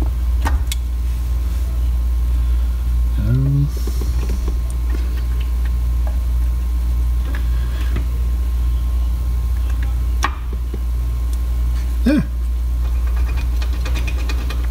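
Hand reassembly of a Corvette manual shift lever: a few sharp clicks and knocks of the parts being fitted, over a loud steady low hum that pulses regularly.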